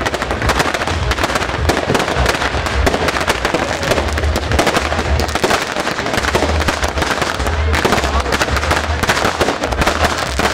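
Multi-shot fireworks cake firing from the ground: a dense, unbroken crackle of many small reports and bursts.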